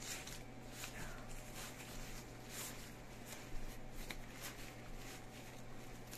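Faint rustling and scuffing of a mesh motorcycle jacket's fabric as hands work an added back protector into it, in short irregular strokes.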